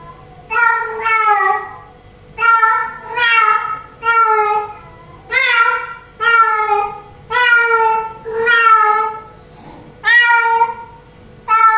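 Female domestic cat in heat calling for a tom: about ten loud meows in a row, roughly one a second, many of them in two parts.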